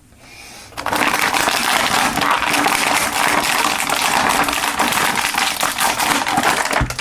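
Plastic toy packaging being handled: a loud, dense crackling and rustling with many small clicks, starting about a second in and stopping just before the end.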